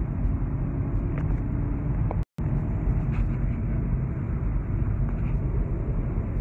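Steady road and engine noise inside a car's cabin at highway speed, cutting out for an instant a little over two seconds in.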